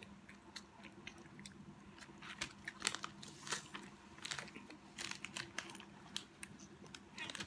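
Faint, irregular crunches and small clicks of crisp Pocky biscuit sticks being bitten and chewed.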